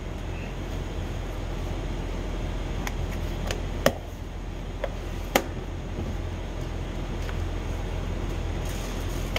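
Plastic retaining clips of a 2021 BMW X7 rear door trim piece popping loose as it is pulled off by hand: a few sharp clicks, the two loudest about a second and a half apart in the middle, over a steady low background hum.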